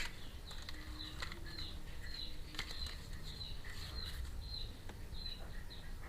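Faint handling of small plastic toy pieces and packaging: soft rustles and light ticks, about two a second.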